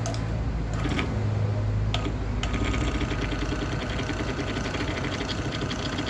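Washing machine motor running with a steady hum. A few light clicks come in the first two seconds, and a higher whine joins about two and a half seconds in. The testers take its running as a sign that neither the motor nor its winding is at fault.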